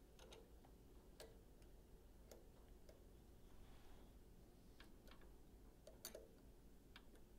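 Near silence with a handful of faint, irregular metallic clicks as hands and a tool work the rear brake caliper's bleeder valve, closing it after bleeding.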